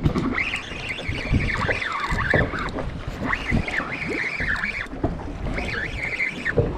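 Spinning reel being cranked to bring in a hooked fish, its gears whirring in repeated spells, over wind buffeting the microphone.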